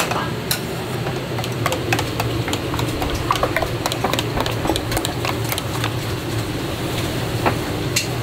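Light clinks and taps of a metal spoon against a sauce bowl and plastic plates as sauce is spooned out, over a steady low mechanical hum from the stall's kitchen.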